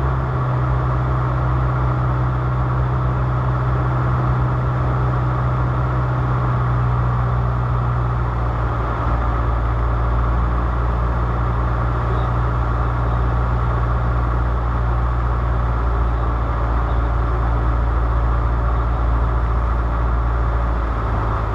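Light aircraft's piston engine running steadily with a constant low drone.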